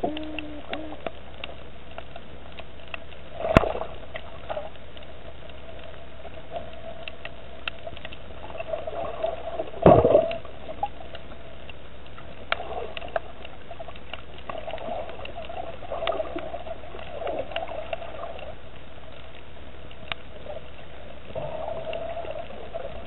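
Underwater sound picked up by a submerged camera: a steady water murmur and hum with many faint scattered clicks, and two louder knocks about three and a half and ten seconds in.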